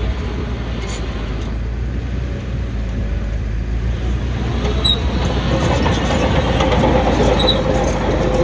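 Heavy diesel earthmoving machinery running steadily with a deep rumble, getting louder and harsher from about halfway through with a steady whine.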